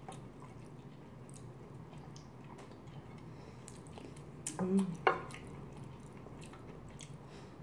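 Close-up eating sounds: a spoon and chopsticks scraping and tapping on a plate as the last of a curry rice is gathered, a spoonful taken with soft chewing, and a brief hum followed by a sharp click about four and a half seconds in.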